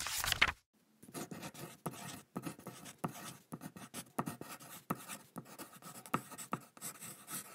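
Pen writing on paper: irregular scratching strokes and light taps, a few each second. It opens with a short loud burst of noise, then a brief pause before the writing starts.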